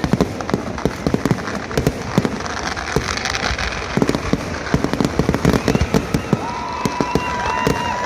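Festival fireworks display: a dense, irregular run of loud bangs and crackles from bursting aerial shells and ground fireworks. A steady high whistle sounds over the bangs near the end.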